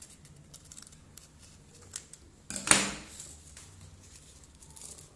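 Scissors cutting a short section off a fringed paper strip: one loud crisp snip about two and a half seconds in, with small paper rustles and clicks around it.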